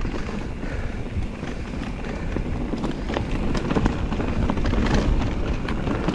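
Electric mountain bike riding over a rough, rocky trail: a steady rumble of wind buffeting the microphone and tyres on dirt, with frequent small clicks and rattles from stones and the bike.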